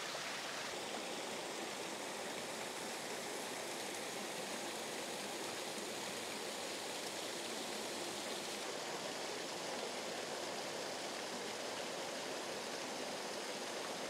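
Small two-strand waterfall running at low flow, water pouring and splashing over rock ledges: a steady rushing.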